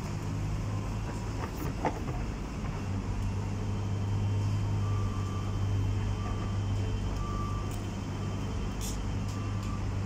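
Diesel engine of a Liebherr excavator running steadily under digging work, a constant low drone. A couple of sharp knocks stand out, and from about halfway through a few faint short beeps come one to two seconds apart.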